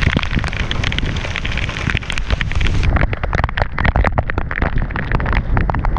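Heavy rain pouring down, with drops striking close to the microphone as a dense run of sharp taps over a low rumble of wind. About three seconds in, the hiss thins and the separate taps stand out more.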